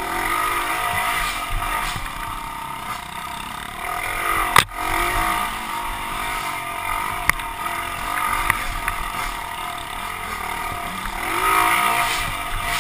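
Small pit bike engine running under load on a dirt trail, its revs rising and falling with throttle and gear changes. A sharp knock about four and a half seconds in, with a couple of lighter clicks later.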